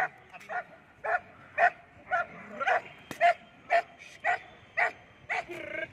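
Dutch shepherd barking hard and repeatedly, about two short barks a second, the challenge barking of a protection-trained dog held on the leash facing a decoy.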